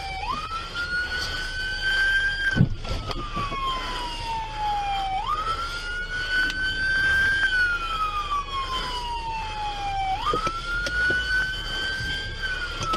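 Police car siren wailing, heard from inside the patrol car: the tone jumps up, climbs slowly, then falls slowly, one rise and fall about every five seconds.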